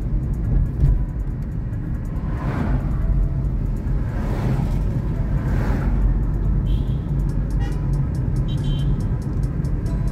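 Steady low rumble of a car's engine and tyres heard from inside the cabin while driving up a hill.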